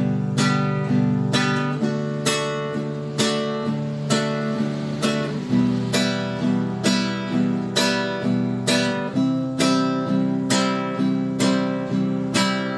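Acoustic guitar strummed in a steady downward rhythm, thumb then all fingers, at about two strums a second, changing through the chords G, D, E minor and C.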